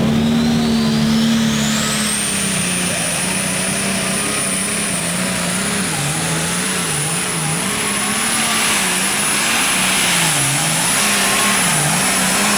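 Turbocharged diesel pulling tractor running flat out on a pull. Its turbocharger whine climbs over the first two seconds to a very high, steady scream, while the engine note underneath wavers up and down.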